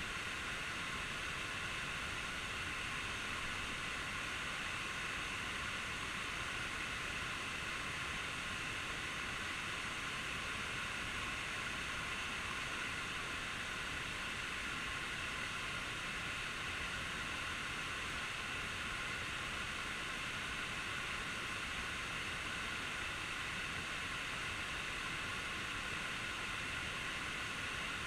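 Waterfall's falling water rushing as a steady, unbroken noise.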